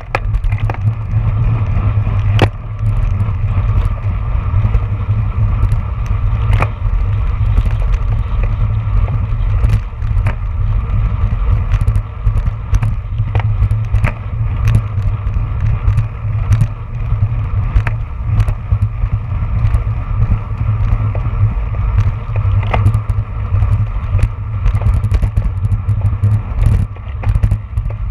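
Wind buffeting the microphone of a handlebar-mounted action camera on a road bike at racing speed, with steady road and tyre noise and scattered sharp clicks and rattles from the bike and mount over the bumps.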